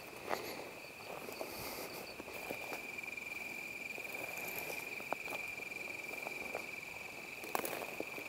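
Steady high-pitched insect chorus, with scattered crunching footsteps on rocky ground and through brush.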